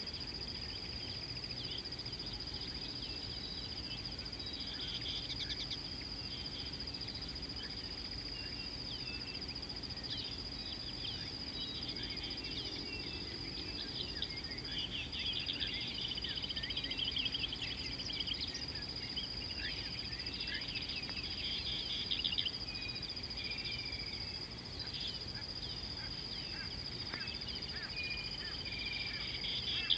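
Wild birds in African bush chirping and trilling, busiest in the second half, over a steady high-pitched whine.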